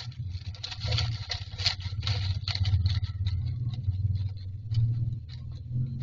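Common myna shuffling and settling in its nest inside a wooden nest box: rapid scratching and rustling of dry grass and nest material, thinning out after about four seconds, over a steady low hum.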